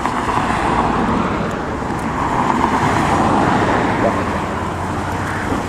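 Road traffic: cars driving past, a steady wash of tyre and engine noise that swells a little in the middle.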